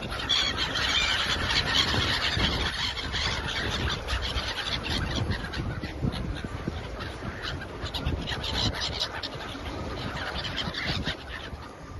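A flock of seabirds calling, with many short overlapping calls and a steady low wind rumble beneath. The calls thin out near the end.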